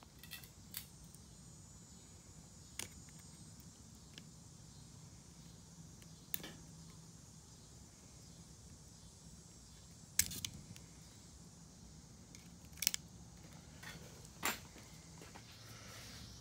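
Scattered sharp clicks and taps of a small screwdriver and fingers prying plastic electrical connector latches loose on a 62TE transmission solenoid pack. There are about seven separate clicks over a faint low hum, the loudest about ten seconds in and again near thirteen and fourteen and a half seconds.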